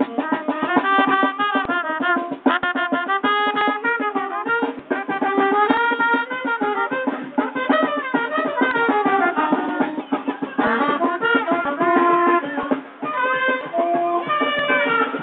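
A live band playing: a saxophone carries a moving melody over steady drums and percussion.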